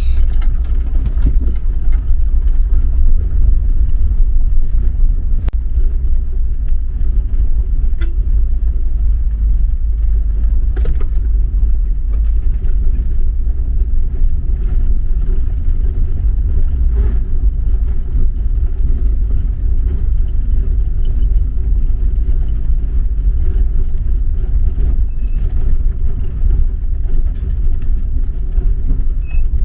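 Volkswagen Kombi van on the move, a steady low rumble of engine and road noise.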